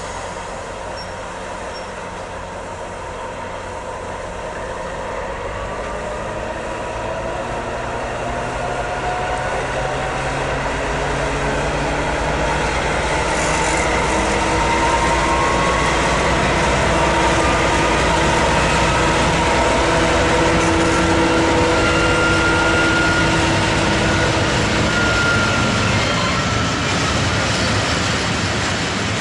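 Six-axle 'Ludmilla'-type diesel locomotive hauling a train of tank wagons. Its engine drone grows louder as it approaches and rises slowly in pitch through the middle, over the rumble of the wagons rolling past.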